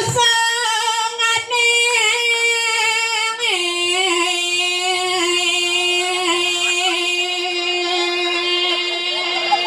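A woman singing unaccompanied in long held notes: one high note for about three seconds, then a step down to a lower note held to the end, wavering slightly.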